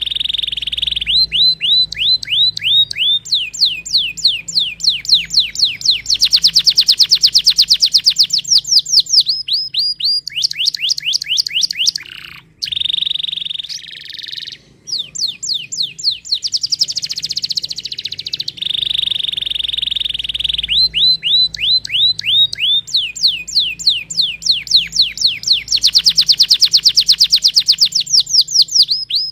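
Domestic canary singing: a steady high trill followed by fast runs of repeated downward-sweeping notes, the rolling tours changing from one to the next, with a short break about halfway through before the same phrase sequence comes round again.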